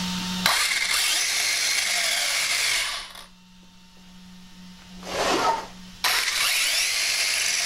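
Arrma Talion 6S BLX's brushless motor and drivetrain revved hard with the wheels spinning free in the air, a loud high whir. It comes in three throttle bursts: a long one that starts suddenly, a short swell, then another hard burst near the end.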